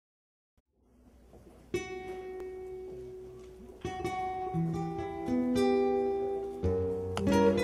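Solo acoustic guitar playing a song's introduction. Single plucked notes ring out from about a second and a half in, building to fuller strummed chords near the end.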